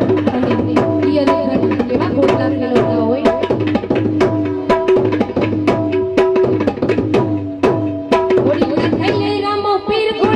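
Live Gujarati devotional folk music: tabla playing a steady rhythmic pattern under sustained harmonium and keyboard melody.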